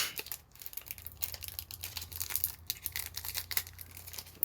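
Foil Pokémon booster pack wrapper crinkling as it is handled: a string of small, irregular crackles.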